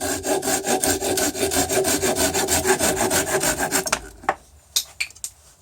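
Small hand saw cutting a wooden dowel down, in quick even back-and-forth strokes that stop about four seconds in, followed by a few light clicks.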